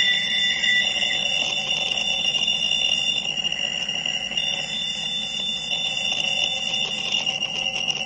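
Several steady high electronic tones held over a hiss, a sonified radio signal presented as the 1977 'Wow!' signal. One of the upper tones drops out about three seconds in.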